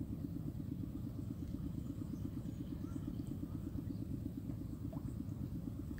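A steady low rumble, with no other sound standing out.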